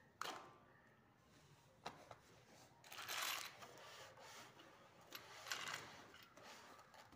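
Faint handling noises from ceiling fan assembly: a couple of sharp clicks and a few short rustles as the fan's wires, blades and tools are handled.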